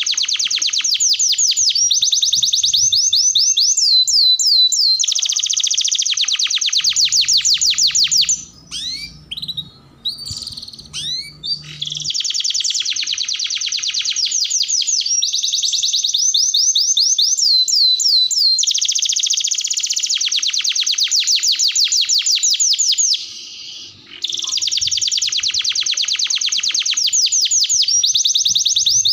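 Domestic canary singing long, rapid rolling trills of fast repeated high notes, phrase after phrase. The song breaks into scattered chirps for a few seconds about a third of the way in and pauses briefly again near the end.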